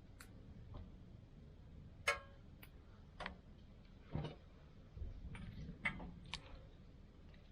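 Kitchenware being handled: irregular light clicks and taps, with one sharper, briefly ringing clink about two seconds in.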